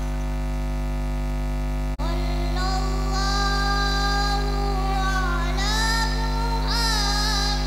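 Steady mains hum through the sound system. About two seconds in, after a brief dropout, a solo voice on the microphone begins a long, wavering, melismatic sholawat phrase with no drums.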